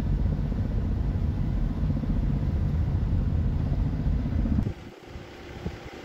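Low, steady rumble of a moving car on the road, with wind on the microphone. It cuts off sharply near the end to quieter, gusty wind noise.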